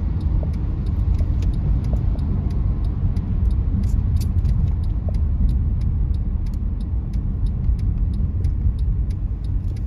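Car driving, heard from inside the cabin: a steady low rumble of road and engine noise, with faint, rapid light ticking on top.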